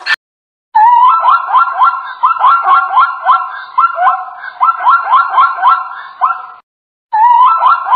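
Plains zebra calling: a long run of quick, high, barking yips, each one rising in pitch, about three a second. The run breaks off about six and a half seconds in and starts again half a second later.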